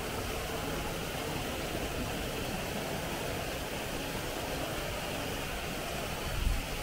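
Steady street traffic noise, with a brief low thump near the end.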